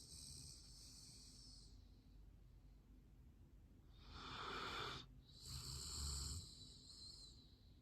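Golden retriever snoring faintly in its sleep: three hissing breaths, one at the start and two more about four and five and a half seconds in, the last with a low rumble under it.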